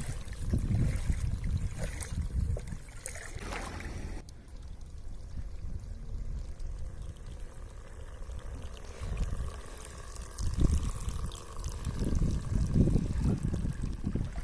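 Water splashing and trickling, with wind rumbling on the microphone. The sound changes abruptly about four seconds in, with less hiss after.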